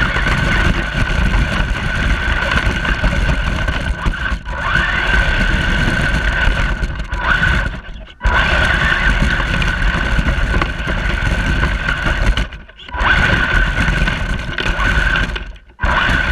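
Radio-controlled toy truck's electric motor whining at a steady high pitch, with rough rumbling noise from its wheels on the ground. It stops briefly about four times and starts up again each time.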